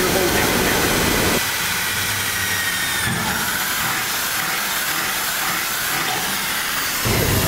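Electric drill running, its bit boring down through an aluminium fuel tank's mounting bracket into the pickup bed floor; a steady noisy drilling sound with a motor whine that shifts slightly in pitch.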